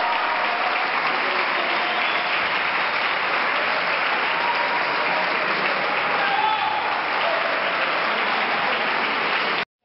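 Audience applauding steadily, with a few voices calling out; it cuts off abruptly near the end.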